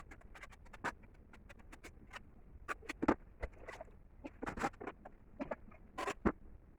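Irregular light clicks and knocks of bricks and mortar being handled and set in place during bricklaying, with a few sharper knocks about three and six seconds in.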